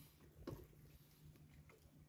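Near silence: a faint steady low hum, with one soft knock about half a second in.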